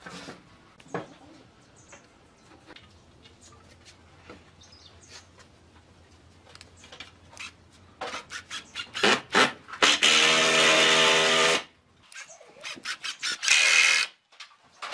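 Handheld power tool working wood in short runs. It starts with a quick series of sharp knocks, then runs steadily for about a second and a half, and gives one shorter burst near the end, after a quiet stretch of faint clicks.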